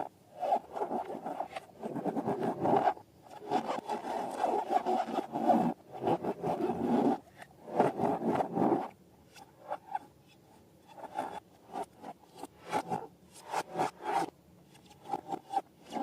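Slime being squished and worked by hand in several long spells. In the second half it gives way to separate sticky clicks and pops.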